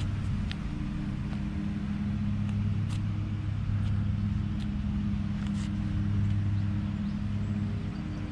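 Pickup truck engine idling, a steady low hum, with a few faint ticks over it.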